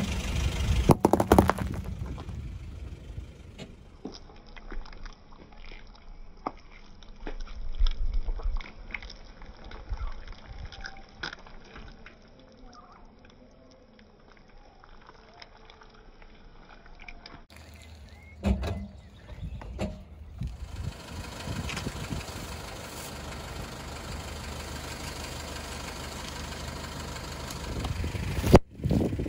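A car tyre rolling slowly over small objects and crushing them: sharp cracks and crunches of hard candy lollipops, then softer wet squelching of jelly. A steady rushing noise runs through the latter part.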